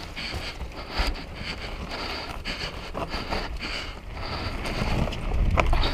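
Wind buffeting the microphone of a moving mountain bike, with scattered clicks and rattles from the bike, the rumble growing louder near the end.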